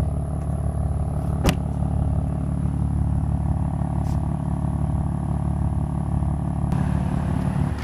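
Steady low hum of a car engine idling, with one sharp click about a second and a half in.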